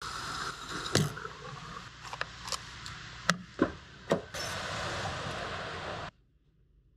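Hands-on sounds of refuelling and setting off in a van: a string of sharp clicks and knocks from the fuel nozzle, the door handle and a toll-gate ticket machine, over a steady hiss. The sound cuts off abruptly about six seconds in.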